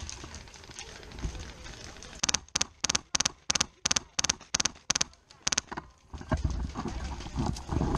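An airsoft rifle firing single shots in a quick string, about a dozen sharp snaps at roughly three a second, starting about two seconds in and stopping about a second before the end. Dull low rumbling noise, like handling or movement, follows near the end.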